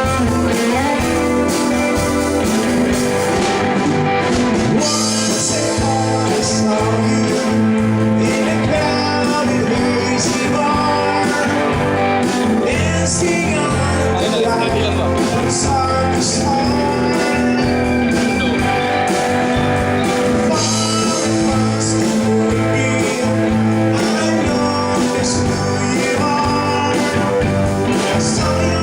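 Rock music led by guitar, with a steady beat and sustained chords.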